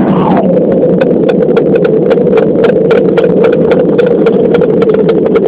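Loud, steady engine roar heard inside the cabin of an Airbus A340-600 airliner, with a whine that drops in pitch in the first half second and then holds steady. Fast, irregular clicking and rattling runs through it.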